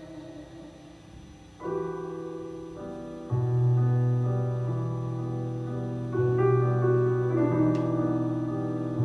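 Background piano music: soft sustained chords, a new chord coming in about one and a half seconds in and deep bass notes joining a couple of seconds later.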